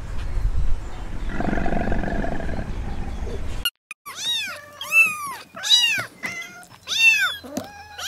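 A low rumble, then a young kitten meowing over and over: about eight short, high meows, each rising and falling in pitch, roughly twice a second.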